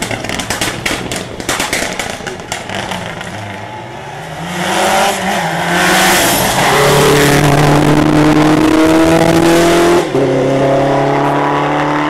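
Subaru Impreza rally car's flat-four engine at full throttle on a close approach: at first farther off, with a run of sharp cracks, then growing much louder and rising in pitch as it accelerates, before holding a high steady note with a brief break near the end.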